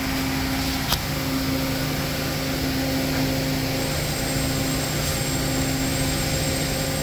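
Steady machine hum of a powered-up Daewoo Puma 2500 LSY CNC lathe, with a single click about a second in and a faint high whine joining about four seconds in.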